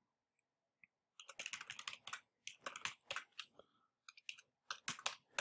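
Faint computer keyboard typing: irregular runs of quick key clicks with short pauses, starting about a second in.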